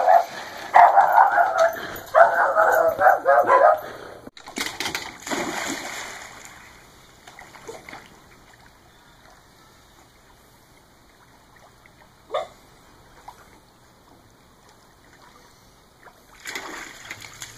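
A dog splashing into a swimming pool after a thrown ball, with a dog barking excitedly over the first few seconds. Then quiet lapping water as it swims, and splashing again near the end as it climbs out by the ladder.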